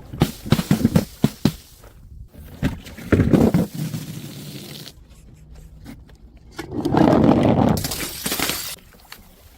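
Glass breaking and shattering in several separate smashes: a run of sharp knocks in the first second and a half, a loud crash about three seconds in, and a longer loud crash late on.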